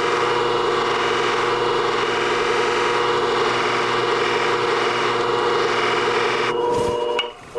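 Flat-disc shear-sharpening machine running with a steady hum while a shear blade is pressed against its spinning polishing pad, giving a continuous rubbing sound. The rubbing stops about a second before the end, with a brief dip in level.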